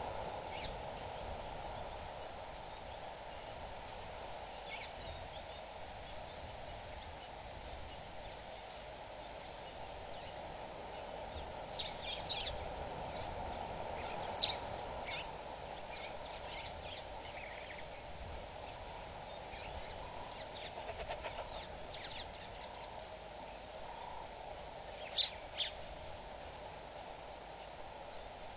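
Outdoor bush ambience: short, high bird calls sound now and then over a steady background hiss, the loudest a quick pair near the end.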